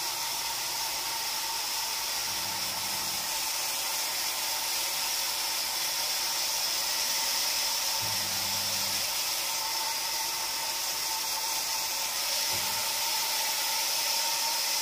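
Hand-held hair dryer running steadily, a constant even hiss, blowing on a wet kitten to dry it.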